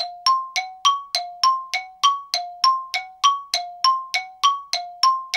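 Timer alarm going off: a two-note chime, low and high alternating, repeating evenly about three times a second to signal that the set cooking time is up.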